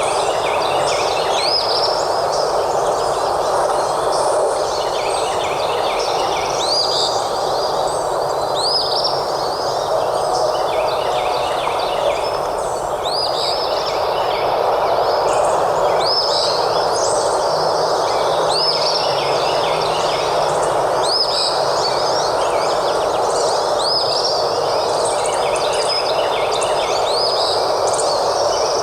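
Forest ambience: birds chirping in short, quickly repeated phrases, about one every second or two, over a steady rushing background noise.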